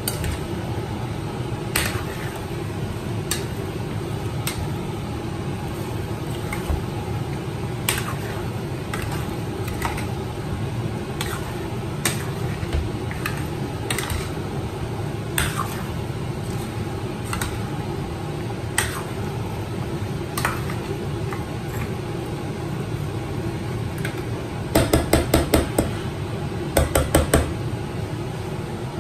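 Metal spoon stirring chunks of mutton and masala in a stainless steel pot, with scattered clinks of the spoon against the pot every second or two. Near the end come two quick runs of four or five metal taps. A steady low hum runs underneath.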